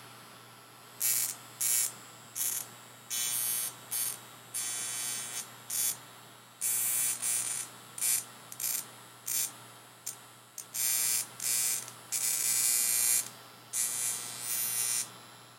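Neon Wand violet wand buzzing and crackling in irregular bursts, some brief and some a second or more long, as its glowing glass electrode is moved over bare skin.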